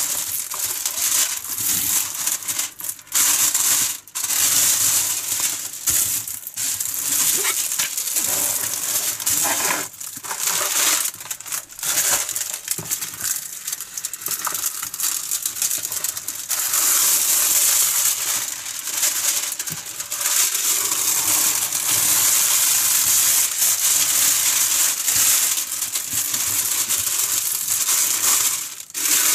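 Clear plastic top sheet on a diamond painting canvas crinkling loudly as hands smooth, lift and press it back down over the glued canvas. It is a continuous crinkle noise, broken by a few short pauses.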